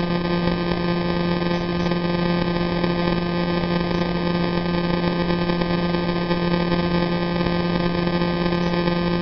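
Sonification of the radio signal from the millisecond pulsar PSR J0437−4715: its pulses, about 174 a second, run together into a steady low buzz, like a cosmic hum, with overtones over a background hiss.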